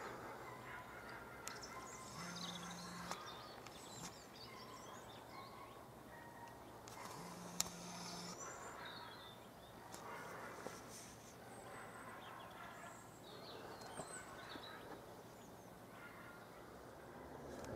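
Faint calls and chirps of small birds, scattered and short, with a single sharp click about seven and a half seconds in.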